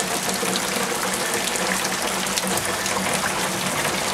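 Steady rain shower falling, with water gushing as runoff pours off the roof.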